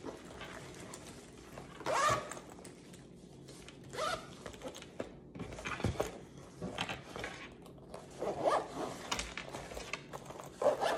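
Zipper of a fabric cosmetic bag being run shut in several short scratchy pulls, with the bag rustling as it is handled.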